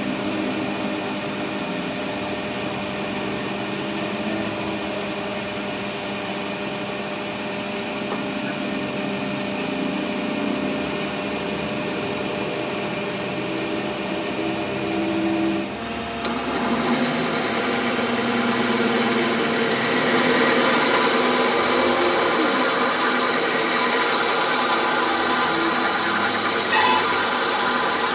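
A workshop machine or power tool running steadily. About halfway through it turns louder and harsher.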